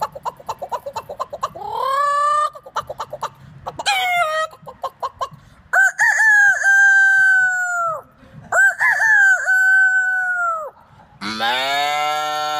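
A man imitating a chicken with his voice: quick clucking broken by short rising calls, then two long rooster crows. Near the end comes a lower, fuller call.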